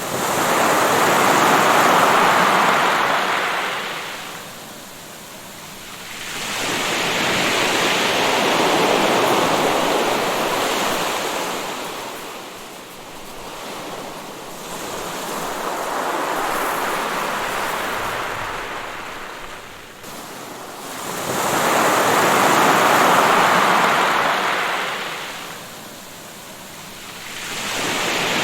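Waves washing onto the shore one after another, each rising to a rush of surf and then drawing back, about every seven seconds.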